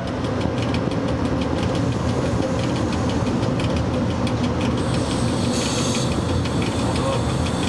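Steady running noise of an E.656 electric locomotive heard from its cab as the train rolls along: a constant low hum with hiss over it.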